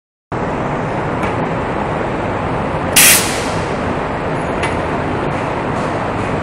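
Steady loud machinery noise filling a wire rope rigging shop, with a short sharp hiss about three seconds in and a couple of faint metallic clicks.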